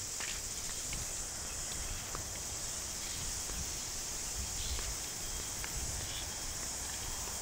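Steady high-pitched insect chorus filling the summer air, over a low rumble and a couple of faint chirps.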